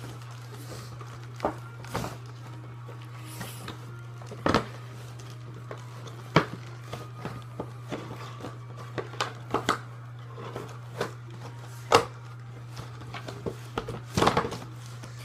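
Scattered clicks and knocks of plastic Nerf blaster parts and packaging being handled, a handful of sharp ones among quieter rustles, over a steady low hum.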